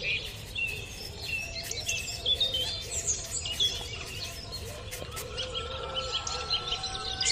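Many small birds chirping and twittering in a busy, overlapping chorus of quick high notes.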